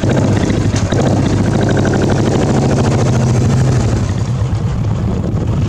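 Motorcycle engine running steadily just after being started.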